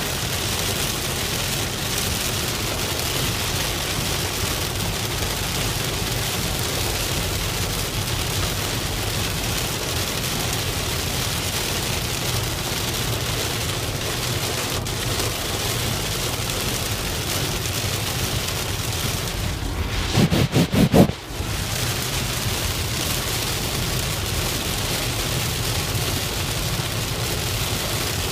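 Heavy rain pattering steadily on a moving car, with road noise underneath. About twenty seconds in comes a short, loud, low rumble of several quick pulses lasting about a second.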